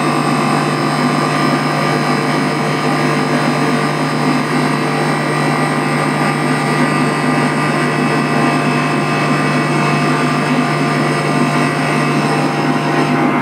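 Electric motor-driven centrifugal fire pump running at steady speed, a loud constant hum and whine with several steady tones.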